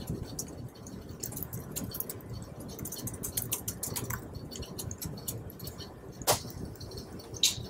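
Laptop keyboard keys clicking in a run of quick keystrokes, then two louder single knocks near the end.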